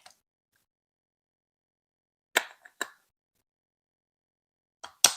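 Plastic Lego Duplo bricks being clicked together: a pair of sharp clicks about two and a half seconds in, and another pair near the end, the last one the loudest.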